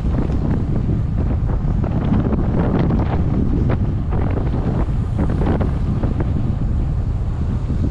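Wind buffeting the microphone of a camera on a fast-moving bike going downhill, a steady heavy rumble with a few light rattles over it.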